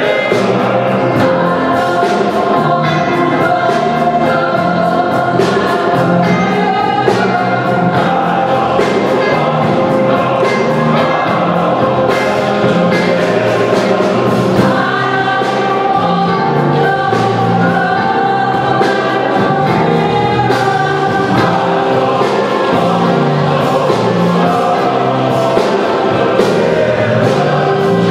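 Mixed choir of men's and women's voices singing a gospel-style song, with piano accompaniment and a steady beat.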